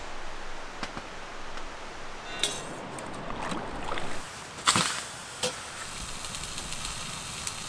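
Steady outdoor hiss of wind and moving water, with a ringing metallic clink about two and a half seconds in and a few sharp knocks, the loudest just before five seconds in.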